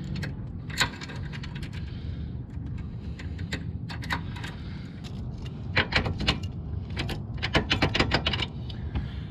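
Sharp metal clicks and clinks in short clusters from a motorcycle trailer hitch being coupled by hand: pin, clip and safety chain rattling against the ball mount. A steady low hum runs underneath.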